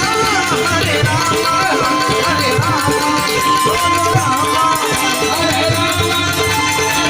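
Gujarati devotional folk music played live: an ornamented melody line with gliding notes over a steady, repeating drum rhythm.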